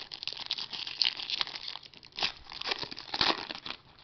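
Foil wrapper of a pack of football trading cards crinkling and tearing as it is pulled open by hand, a dense crackle with louder rips about a second in and again near the end.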